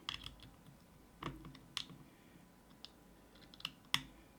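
Irregular light clicks and taps of small metal driver bits being handled and tried in a tiny screw head, about eight in all.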